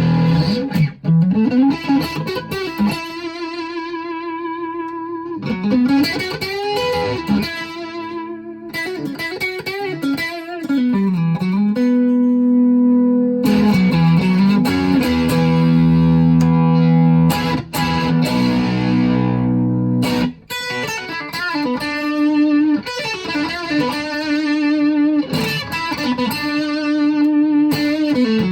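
Schecter OL-PT-TH thinline electric guitar played through a VOX MINI5 practice amp: a lead melody with string bends and vibrato, with some held notes and chords.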